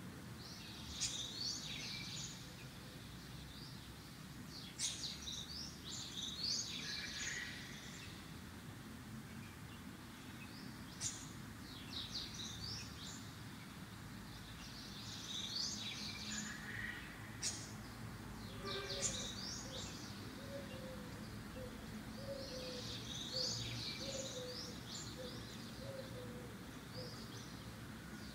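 A bird singing in short bursts of rapid, high chirps that come every few seconds, with a run of short, lower repeated notes joining in during the second half.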